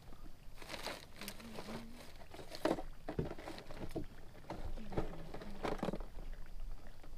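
Scattered light clicks and knocks of a fishing rod being worked and its reel cranked through a retrieve on a boat deck. Two sharper knocks come about a third of the way in and again past the middle.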